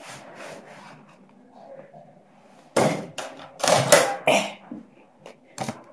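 Quiet handling noise, then from about three seconds in a run of loud clacks, knocks and rubbing as a countertop microwave's door is opened, with two short clicks near the end.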